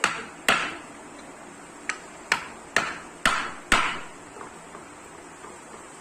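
Seven sharp hammer blows at an uneven pace over about four seconds, each with a short ring, then they stop.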